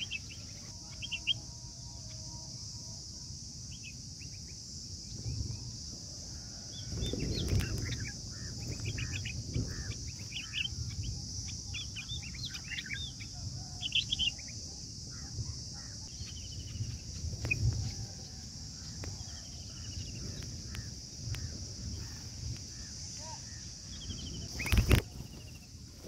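Short bird chirps scattered throughout over a steady high insect drone, with a low rumble through the middle. A single sharp knock comes near the end.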